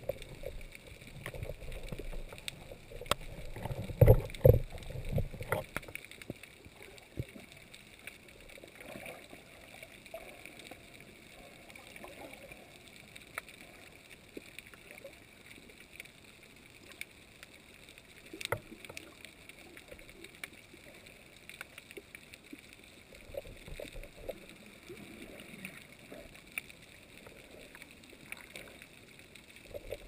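Underwater sound in shallow rocky water, picked up by a submerged camera: faint sloshing and surge with scattered small clicks. A burst of loud, low knocks and thumps comes about four to five seconds in.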